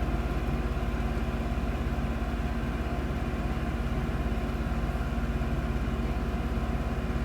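1988 Toyota 4x4's engine idling steadily, an even, unchanging hum with a regular low pulse.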